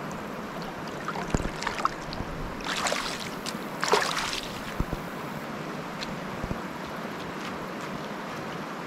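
Steady rush of a shallow river, with footsteps clicking on rock and two short splashes about three and four seconds in as someone steps out through the water onto rocks.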